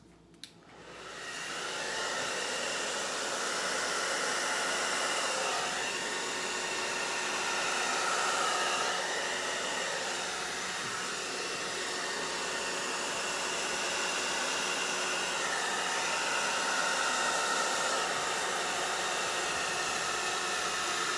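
Hair dryer switching on about a second in and then running steadily, blowing wet poured acrylic paint outward across a canvas to open it into a bloom; its hiss wavers slightly.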